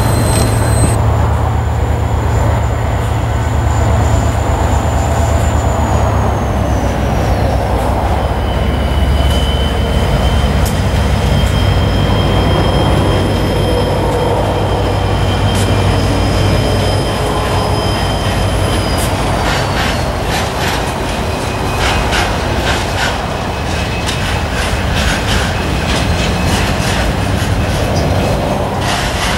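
A train running on the rails, with a heavy low drone and thin high-pitched wheel squeal tones that slide slightly lower in pitch. About two-thirds of the way in, the drone eases and a quick run of clicks from the wheels takes over.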